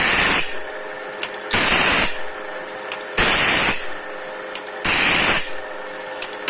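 Band saw blade sharpening machine working automatically: its grinding wheel makes a short harsh grinding burst about every 1.6 seconds, four times, as it passes through each tooth. Between strokes the motor hums steadily, with a light click.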